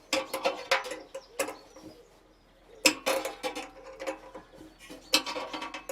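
A steel ring spanner clinking and knocking against the nut and metalwork of a motorcycle's petrol-tank mount as the nut is worked loose. The sharp metallic clicks come in clusters, with a quiet pause a little before the middle.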